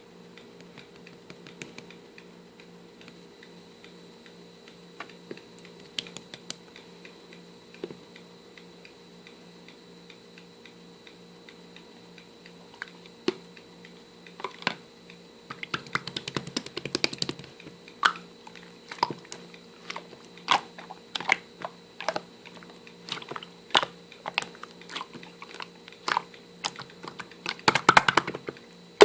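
Irregular light clicks and taps, sparse at first and coming thick and fast from about halfway, over a steady low hum.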